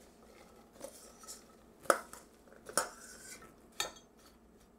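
Diced apples being spooned from a stainless steel bowl into a Pyrex glass measuring cup: a metal spoon clinks against the bowl and the glass about four times, with the soft tumble of apple pieces between.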